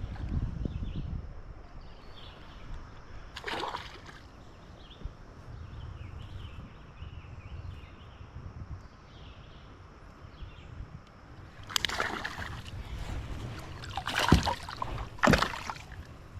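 River water sloshing against a fishing kayak, with several sharper splashes or knocks near the end.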